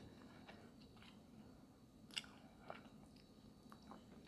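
Faint close-up chewing of snow crab, with scattered small clicks and crunches, one a little louder about two seconds in.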